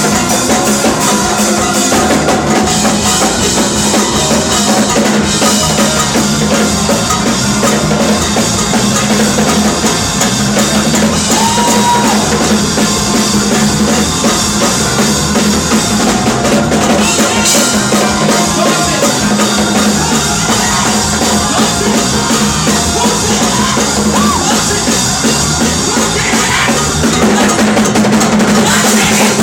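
Music with a full drum kit, bass drum and snare, playing steadily throughout.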